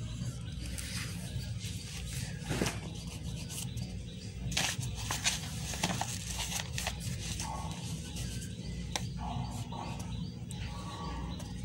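Graphite pencil scratching on paper, with scattered taps and rustles of the sheet being handled, over a steady low hum.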